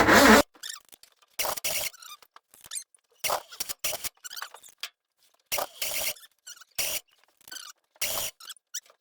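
A Ford FE V8 engine cranking or running cuts off abruptly in the first half second. It is followed by a run of short, separate squeaks and rubbing sounds.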